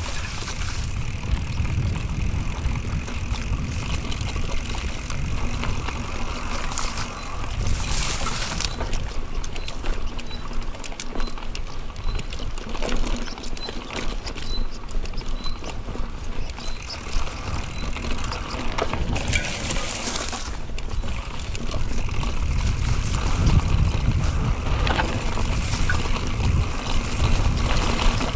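Mountain bike ridden over a rough trail: wind buffeting an action camera's microphone, with tyre noise and scattered knocks and rattles from the bike.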